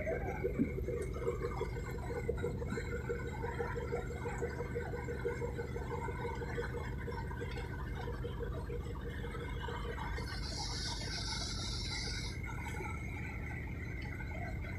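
Steady low rumble of a large passenger ferry's engines and deck machinery, with a fast pulsing hum that fades about nine seconds in and a steady higher whine; a short burst of high hiss comes near the end.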